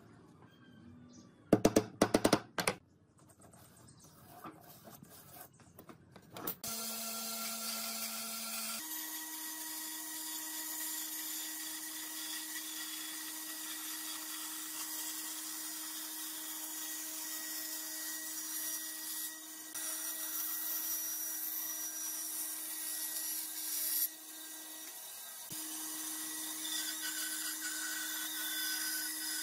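About two seconds in, a quick run of sharp hammer blows on a nail in a wooden board. From about six seconds in, a band saw runs steadily with a constant motor hum, cutting through wooden boards, with a couple of brief dips.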